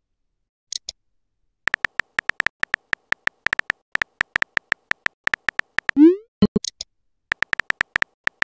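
Keyboard tap clicks from a texting app, fast and even at about five a second, as a message is typed out. A rising swoosh about six seconds in marks the message being sent. Short high double clicks come near the start and just after the swoosh, and the typing clicks then start again.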